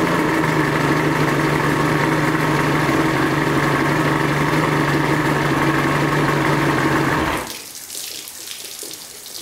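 1975 Mercury 1500 inline-six two-stroke outboard idling steadily on its first start-up, then stopping suddenly about seven seconds in. The hiss and splash of garden-hose water spraying around the lower unit goes on after it.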